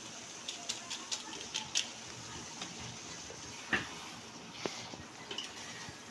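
A metal utensil clinking and scraping against a cooking pot of curry on the stove, a string of light irregular clicks with one sharper knock near the middle, over a steady hiss.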